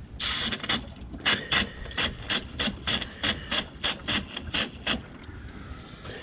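A cooling system pressure tester's bleed valve being pressed to let the pressure out of the pressurized coolant system. There is one longer hiss, then a quick run of short hisses at about three a second that stops about five seconds in.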